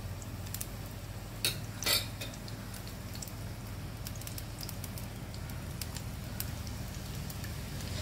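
Chopped small onions sizzling in hot coconut oil in an iron kadai, a faint, scattered crackle. Two short knocks come about a second and a half and two seconds in.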